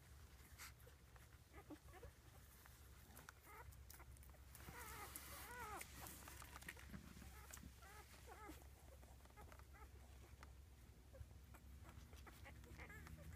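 Newborn rough collie puppies, five days old, squeaking and whimpering faintly, with a quick run of short high squeals about five seconds in. Soft rustling and scuffing as they crawl over the bedding.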